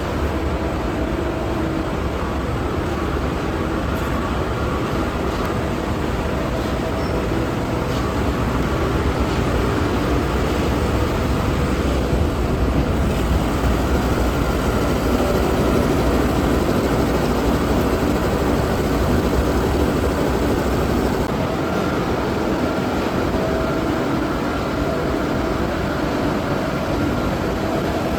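Straw shredding and conveying line running under way, a steady loud mechanical din with a low rumble and a few steady humming tones. The deep rumble eases toward the end.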